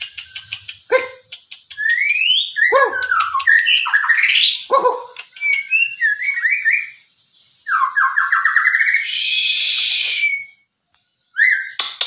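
White-rumped shama singing: a varied run of loud whistled notes sliding up and down, quick clicking trills, and a harsh hissing rasp about nine seconds in, then a short pause before one more note near the end.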